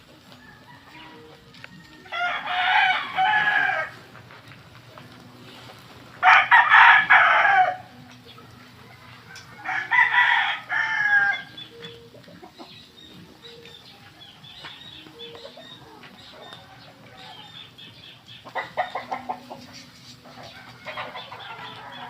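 A rooster crowing three times, each crow lasting about a second and a half and coming about four seconds apart, followed near the end by softer, shorter calls.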